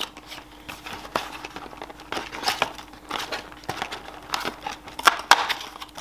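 Cardboard advent calendar doors and plastic-wrapped chocolate bars being handled up close: scattered crinkling, rustling and small taps. There are louder rustles about two and a half seconds in and again near the end.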